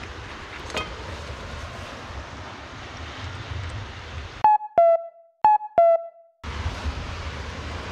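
Steady rushing outdoor noise with a low rumble, cut to dead silence about four and a half seconds in for an added sound effect: a clean two-note falling chime played twice. The rushing noise returns about a second and a half later.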